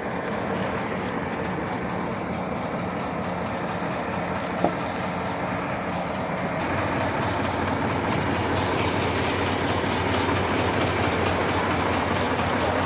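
Excavator's diesel engine running steadily, with a rapid high-pitched beeping in short groups over the first half. A single sharp click comes about four and a half seconds in, and the engine gets a little louder and deeper once the beeping stops.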